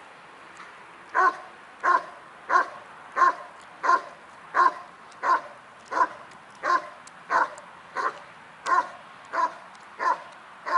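Rottweiler barking steadily at a protection helper, the hold-and-bark (guard and bark) of IPO protection work. The barks start about a second in and come evenly, about one and a half a second.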